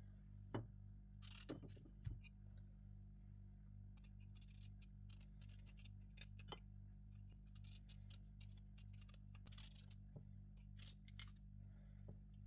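Faint, irregular clicks and short scraping ticks of food being handled and cut, over a steady low hum.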